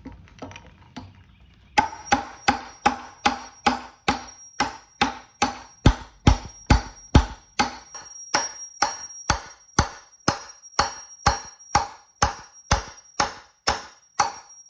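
Hammer striking the metal of a Jeep JK door hinge in a steady run of blows, about two a second, starting about two seconds in, each with a bright metallic ring. The blows are driving the new hinge pin and its copper sleeve into place.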